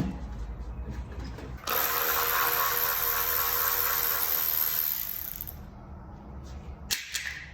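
Milwaukee M12 3/8-inch cordless ratchet running a bolt on an LS 5.3 V8 for about three seconds as a steady whir, followed by a sharp click near the end.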